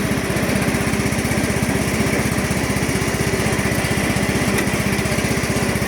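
Small gasoline engine running steadily at an even speed, a rapid regular chugging.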